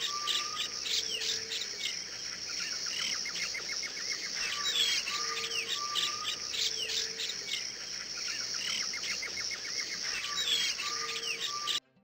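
Birds chirping and calling over a steady high drone of insects, the same run of calls coming round again about every five seconds. It cuts off suddenly near the end.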